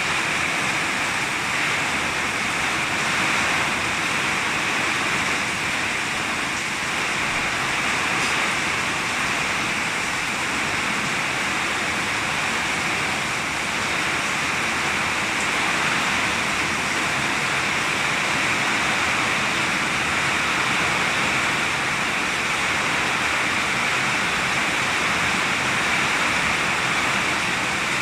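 Heavy rain falling steadily in strong wind: a dense, even hiss that holds constant throughout.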